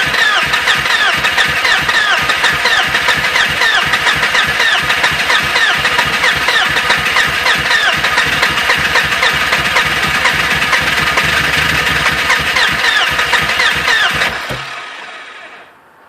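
BMW E36 being cranked on the starter motor for about fourteen seconds, the engine turning over in a steady rhythm with a starter whine but never catching, then the cranking stops. It is the sound of a hard-starting engine that won't fire.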